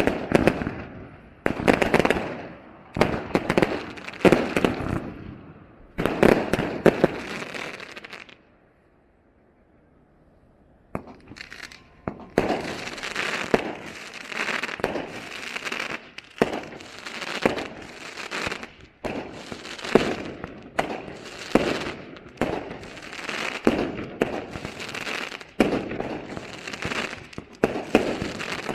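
Fireworks show: shells bursting in sharp bangs every second or two, each trailing off. After a brief near-silent gap about a third of the way in, the bangs return closer together with steady crackling between them.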